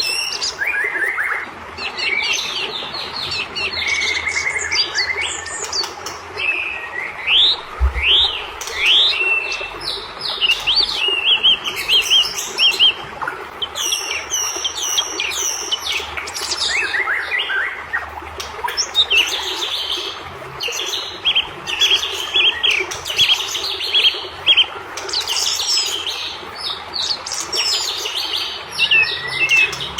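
White-rumped shama (murai batu) singing nonstop in an agitated, rapid stream of varied whistles, trills and chirps, with hardly a pause.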